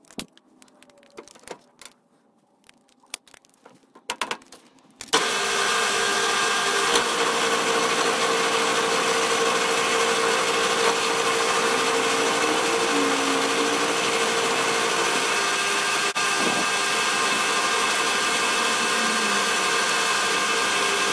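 Milling machine with a spiral end mill cutting an aluminium alloy block held in the vise. After a few quiet seconds with faint knocks, a steady machine sound with several held tones starts suddenly about five seconds in and runs on evenly.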